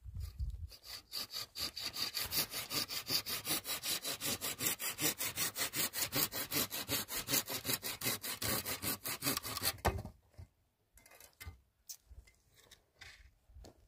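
Hand saw cutting through wood in fast, even back-and-forth strokes that stop about ten seconds in, followed by a few light knocks.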